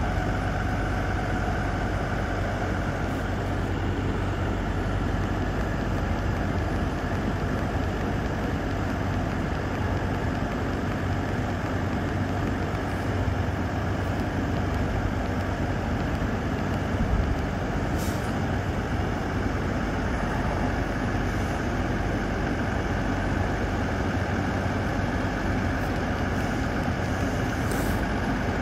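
Truck engine running steadily, a low even hum with no change in speed.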